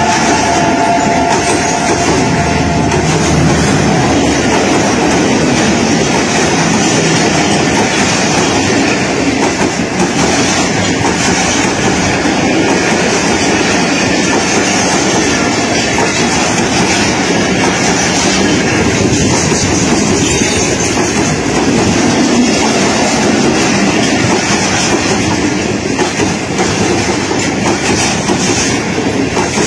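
Pakistan Railways passenger coaches of an express train running past at speed close by: a loud, steady rush of wheels on rails with a clickety-clack over the rail joints. A steady two-note tone sounds for the first three seconds.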